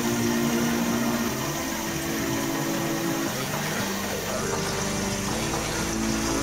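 Background electronic music of held synth notes that step to new pitches every second or two, over a steady rushing hiss.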